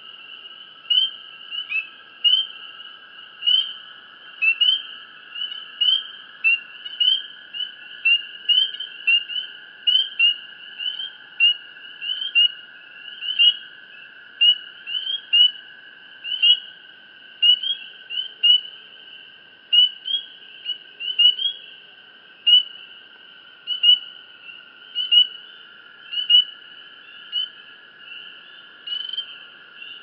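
Night chorus of crickets: a steady high trill throughout, with loud short rising chirps repeating about three times every two seconds over it.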